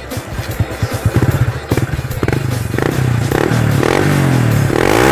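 Honda Wave 110i's single-cylinder four-stroke engine running through an aftermarket carbon-look slip-on exhaust on an otherwise stock engine. It idles, then gets a few short throttle blips and a longer, held rev near the end, fairly loud.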